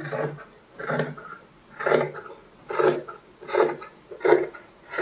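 Large tailor's scissors cutting through a nighty sleeve, a regular series of snips about one a second as the blades close through the fabric.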